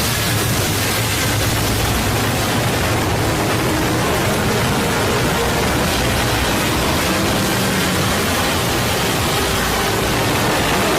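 Loud, steady harsh noise like static, with faint tones buried under it: deliberately distorted audio used as a punishment effect.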